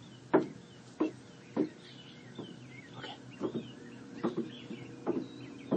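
A series of short, dull knocks, a little more than one a second, with faint bird chirps in the background.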